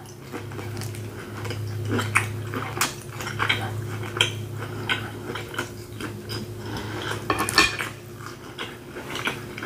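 Close-miked chewing of a mouthful of steak: a run of wet mouth clicks and smacks over a low steady hum.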